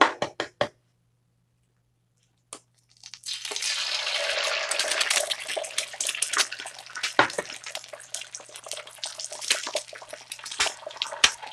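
Eggs frying on a hot grill plate: a loud sizzle starts suddenly about three seconds in and runs on as a crackling hiss with sharp pops.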